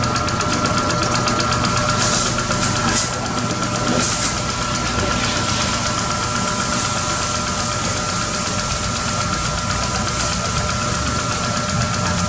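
Toyota Innova engine idling steadily with the hood open, a fast even running rhythm. A few short spray hisses come about two to four seconds in.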